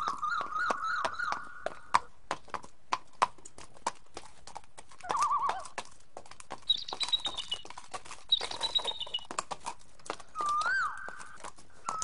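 A horse's hooves clopping unevenly at a walk on a dirt track, with the horse whinnying a few times: near the start, about five seconds in and near the end.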